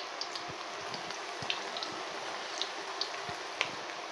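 Chicken pakoras deep-frying in hot oil in a steel wok: a steady sizzle with scattered crackles and pops.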